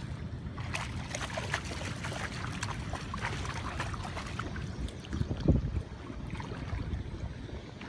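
A hooked shad splashing and thrashing at the water's surface as it is reeled in, a run of irregular sharp splashes over a steady low rumble. A loud low thump about five and a half seconds in.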